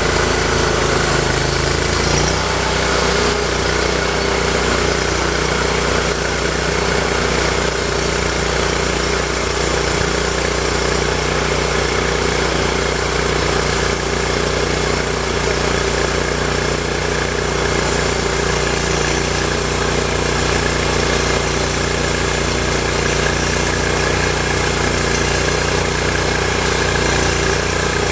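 Vallee 'Big Red' portable sawmill's gasoline engine running steadily, its pitch shifting slightly about two seconds in.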